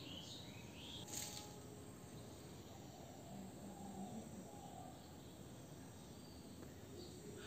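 Near silence: faint room tone, with a few faint high chirps in the first second and faint distant sounds in the middle.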